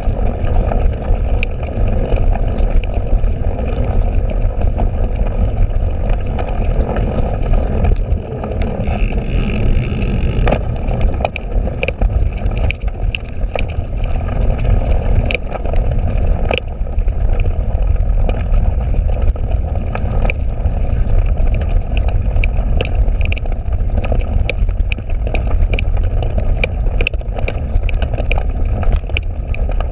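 Cyclocross bike ridden fast over rough, muddy grass: wind and ground rumble on a handlebar-mounted camera, with frequent sharp rattling clicks from the bike jolting over bumps.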